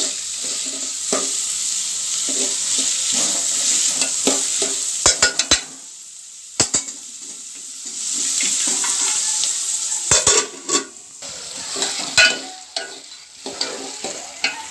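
Finely chopped onions sizzling in hot oil with mustard seeds, being stirred with a spoon that knocks and scrapes against the pan several times. The sizzle drops away briefly around six seconds in, then returns.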